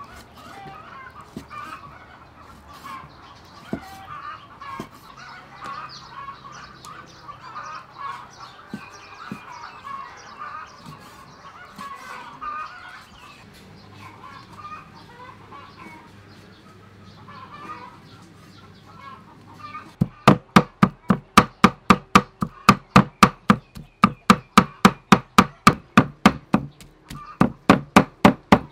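Steel cleaver on a wooden chopping block mincing raw pork. For the first two-thirds the knife makes only scattered light cuts under the background clucking of chickens. After that it hits the block in rapid, loud chops, about four to five a second, with a brief pause near the end.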